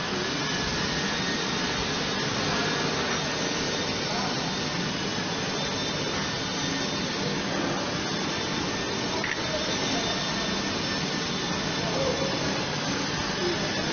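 EMG BigAS AHR515KGS hydraulic surface grinder at work: its grinding wheel cutting a flat steel workpiece under coolant spray, a steady, unbroken hissing grind.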